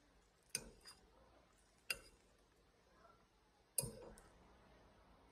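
Metal spoon clinking against a ceramic plate while scooping up dessert: three sharp clinks about a second and a half apart, the last the loudest, each of the first and last followed by a lighter tap.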